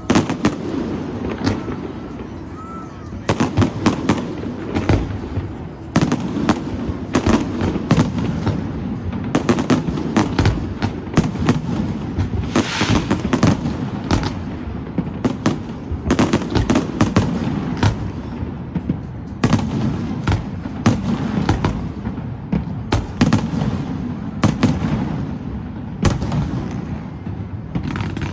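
Fireworks display: a rapid, irregular barrage of aerial shell bangs and crackles over a continuous low rumble of reports.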